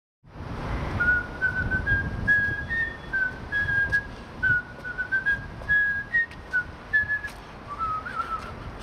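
A man whistling a tune: a string of short, clear notes stepping up and down within a narrow range, starting about a second in and ending near the end.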